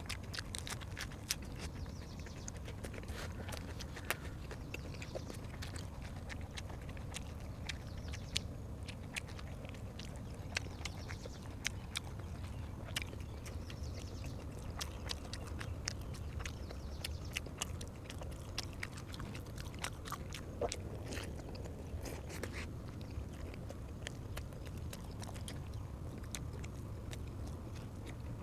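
A person chewing and biting food close to the microphone, with many irregular sharp mouth clicks and smacks over a steady low hum.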